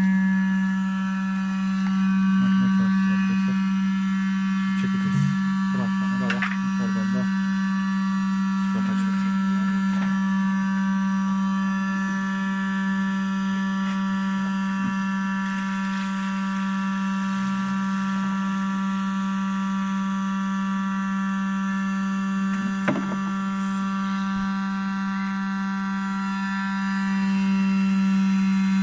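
Electric cream separator running, separating cream from sheep's milk: a steady hum with many overtones from its motor and spinning bowl. A single sharp knock comes near the end.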